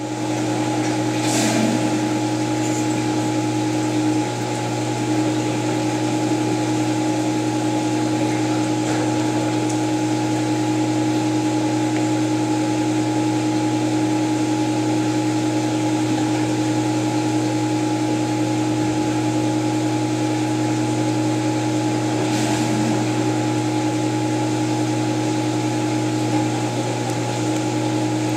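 Steady motor hum: a low drone with a few higher steady tones over it, unchanging throughout.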